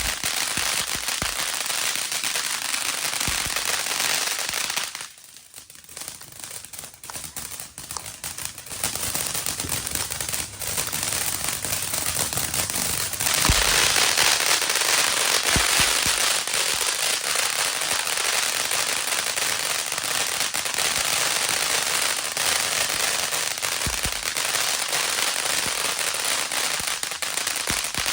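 A 500-gram fountain firework burning, giving off a dense crackling hiss. It drops away for a few seconds about five seconds in, then grows louder and denser from about thirteen seconds on.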